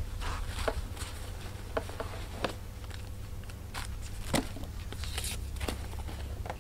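Handling noise of unpacking a shoe: rustling of a fabric dust bag and packing stuffing, with scattered light clicks and crinkles.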